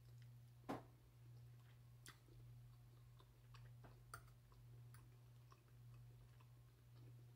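Faint eating sounds: quiet chewing with scattered soft clicks, the sharpest about a second in, over a low steady hum.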